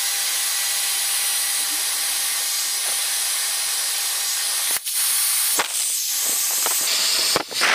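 Hair dryer running, a steady rush of air with a faint motor whine, blowing on a PVC shrink wrap over an 18650 lithium-ion battery to shrink it tight. The airflow dips briefly just under five seconds in and again near the end.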